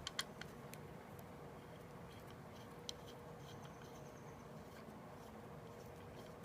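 Faint, scattered clicks of a small screwdriver turning the magazine release screw into an airsoft M4 receiver: a few in the first second and another near the middle, over a faint steady hum.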